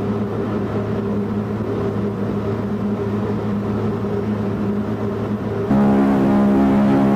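Ship's horn of the liner RMS Empress of Canada (1960) sounding a long, steady low note over the hiss of an old recording. About six seconds in it becomes much louder and fuller.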